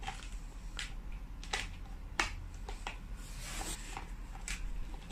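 Jelly beans clicking and rustling as a hand rummages through them: a few separate sharp clicks spread over several seconds, with a soft rustle in between.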